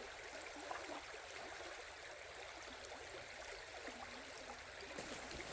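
Faint, steady rush of flowing water, with small scattered ticks over it.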